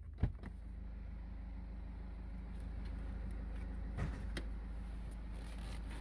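BMW 520d's N47 four-cylinder diesel idling with a steady low hum, heard from inside the cabin; the owner calls this noise and vibration at idle strange, even though the timing chain has been replaced. A sharp click comes about a quarter second in, and two lighter knocks come around four seconds in.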